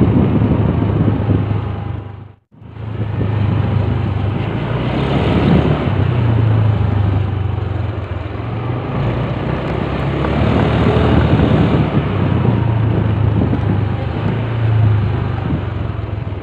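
Honda CRF motorcycle's single-cylinder engine running as it is ridden slowly, a low hum whose level swells and eases. All sound cuts out for a moment about two and a half seconds in.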